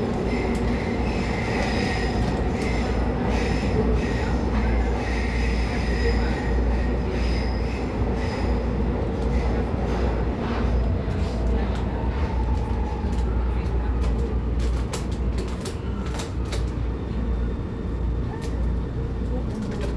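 Interior sound of a São Paulo Metro Frota L (Alstom-built) train running on its rails: a steady low rumble with faint high wheel-squeal tones, giving way about halfway through to a string of sharp clicks and knocks over the rumble.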